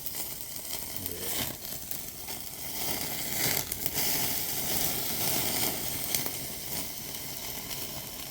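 Food sizzling and crackling in a hot frying pan, with scattered pops, louder for a few seconds in the middle.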